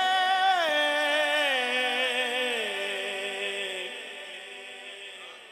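A man's unaccompanied voice holding one long drawn-out note of a devotional manqabat, stepping down in pitch and fading away over about four seconds.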